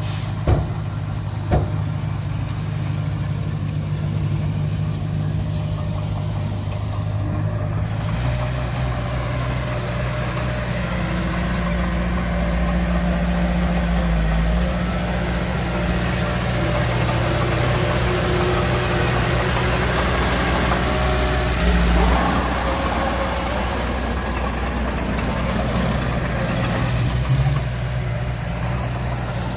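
Heavy diesel engine of earthmoving machinery running steadily. About a quarter of the way in it takes on a deeper, stronger note, and about three-quarters through it briefly surges.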